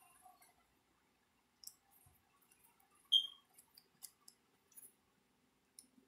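Scattered small clicks and taps as the plastic housing of a 240-volt plug is pushed together over its prongs and a screwdriver is set into its screws. The sharpest click, about three seconds in, has a short high ring.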